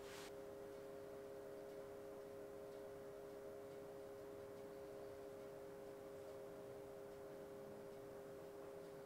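Faint steady hum of two held tones, with a short hiss right at the start.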